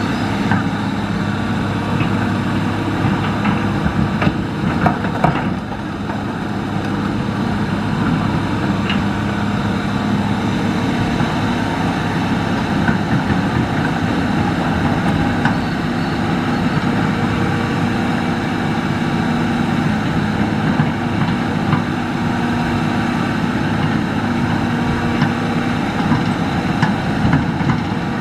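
Hitachi hydraulic excavator's diesel engine running steadily as it works, with a few short knocks about four to six seconds in.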